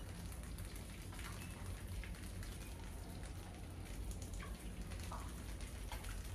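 Many rats pattering and scrabbling over a wire-mesh trap and a tiled floor: a steady light pattering with a few short sharp clicks or squeaks in it.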